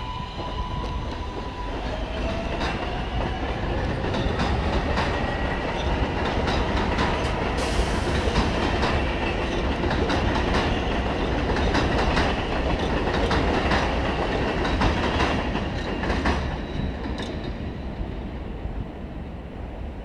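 R143 subway train accelerating away from the station. Its traction motors whine and rise in pitch at the start, then the wheels click rapidly over the rail joints, growing louder and then fading as the train pulls into the distance.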